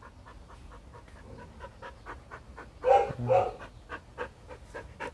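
Bắc Hà (Hmong) dog panting with its mouth open, quick even breaths several times a second, with a louder short burst about three seconds in.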